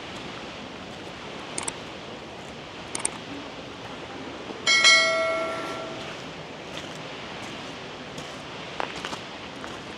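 A single metallic ring like a struck bell about halfway through, sounding suddenly and dying away over about a second. Under it runs a steady rushing noise, with a few light clicks.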